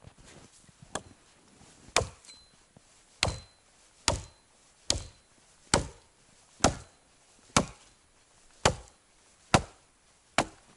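Axe chopping wood: eleven sharp blows, about one a second, each with a short ringing tail.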